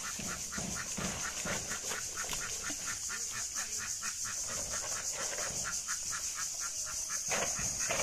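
Animal calls: a steady high-pitched drone with a fast pulsing call over it, about five pulses a second, and one louder call near the end.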